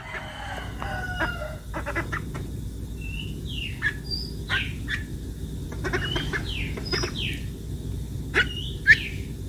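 Young white domestic duck peeping: a string of short, high calls that each fall in pitch, about one or two a second, the loudest two near the end.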